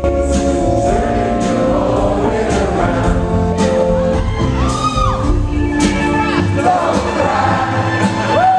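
Live rock band playing a song with sung vocals in a large hall, with the audience cheering and whooping over it.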